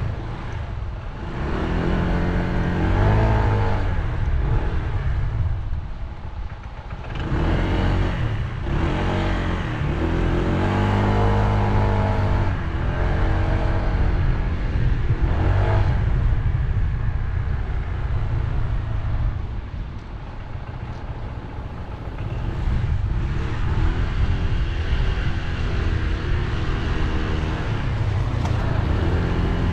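Honda ADV scooter's single-cylinder engine running on the move, its pitch rising and falling again and again as the throttle is opened and eased, over a steady low rumble.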